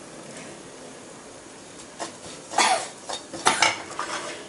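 Metal spoon scraping and clinking against a steel wok while stirring chili flakes in oil, in several short strokes starting about two seconds in.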